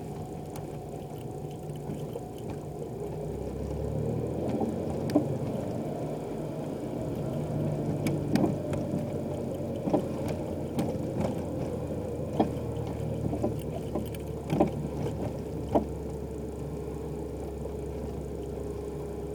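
Car on the move with a steady low drone of engine and road noise. Sharp, irregular knocks and clatters from a rattling coilover suspension come through it, about one every second or two from roughly five seconds in until near the end.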